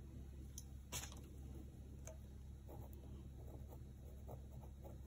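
Faint scratching and tapping of a pen writing numbers on paper, with a sharper tap about a second in, over a low steady hum.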